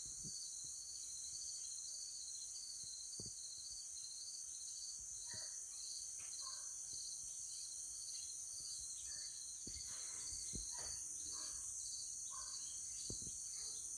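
Steady high-pitched chorus of insects pulsing about twice a second, with faint distant dogs barking now and then from about five seconds in.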